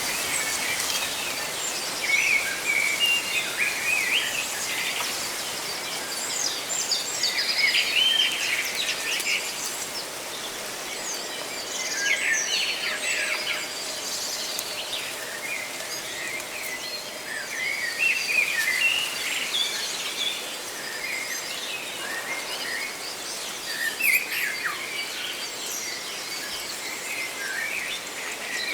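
Many birds chirping and calling, with short high chirps and trills scattered all through, over a steady hiss of leaves rustling in the wind.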